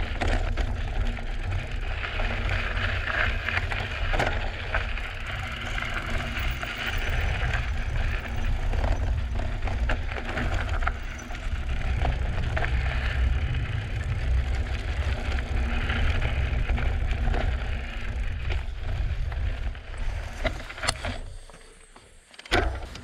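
Drop-bar monstercross bike riding a dirt and rock trail: tyres rolling over gravel with frequent knocks and rattles from the bike over bumps, under a heavy, gusting wind rumble on the microphone. Near the end the noise drops away for a moment, then one sharp knock.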